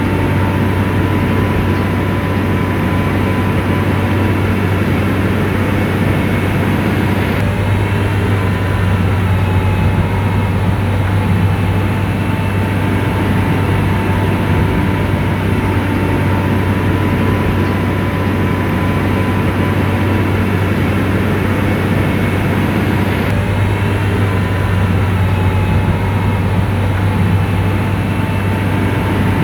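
Heavy diesel engine of a motor grader running steadily under load, with a strong low hum.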